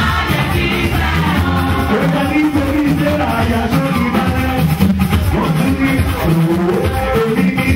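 Band music with a lead voice singing over it, continuous and loud.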